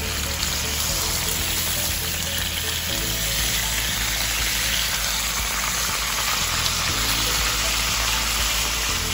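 Butterflied fish frying in hot oil in a pan, a steady sizzle, with background music underneath.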